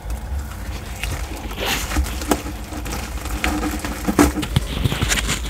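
Sulcata tortoise biting and chewing soft, wet papaya flesh close to a microphone: irregular wet crunches and sharp clicks of its beak, over a low steady rumble.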